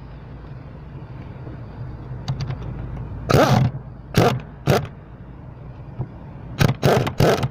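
Short metallic clanks and knocks of a tube socket wrench working a clutch master cylinder mounting nut under the dashboard, a few in the middle and a quick cluster near the end, over a steady low hum.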